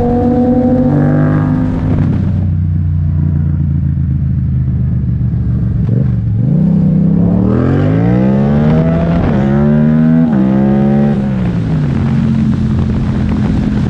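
2015 Yamaha MT-07's parallel-twin engine, de-restricted and breathing through an Akrapovic titanium exhaust, heard from the rider's seat. It runs at a steady cruise and eases off for a few seconds. About six seconds in it revs hard with a rising pitch, breaking off at two quick upshifts, then settles to a steady cruise.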